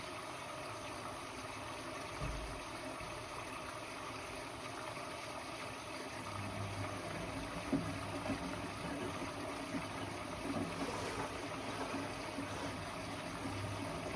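Blomberg WA391 washing machine early in a 90 °C boil wash, with water running and gurgling into it as it fills. A low hum joins about six seconds in, with a dull knock and a click.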